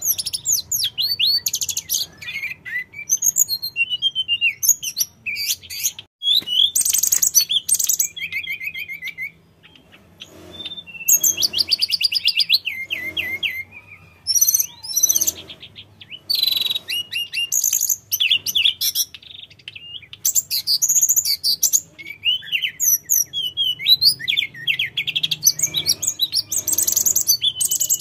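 Male hill blue flycatcher singing a long, lively song of high sweeping whistles and rapid trills, phrase after phrase, with a brief pause about ten seconds in.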